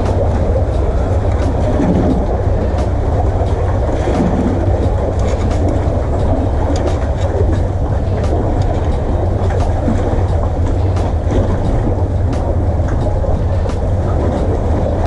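Wind buffeting the microphone in a steady low rumble, mixed with sea water washing among the concrete tetrapods of a breakwater, with scattered light clicks.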